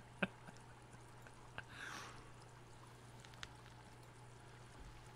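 Faint room tone with a steady low electrical hum, a few small clicks and a short hiss about two seconds in.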